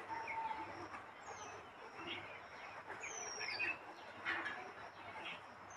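Faint small clicks and rattles of metal jhumka earrings being handled and fastened at the ear, over a low steady hiss, with a few faint high descending chirps.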